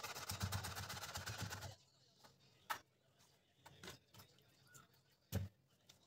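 Kitchen knife chopping quickly on a plastic cutting board, a rapid run of strokes for the first two seconds or so. Then come three separate knocks on the board.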